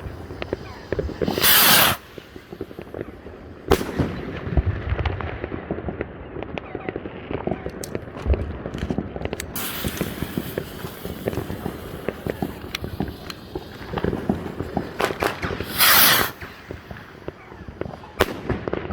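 Firework rockets from a Helios 'Austria Three' set launching with a loud rushing hiss, one about a second in and another about two-thirds of the way through. The first bursts with a sharp bang about two seconds after its launch, followed by scattered cracks and crackling.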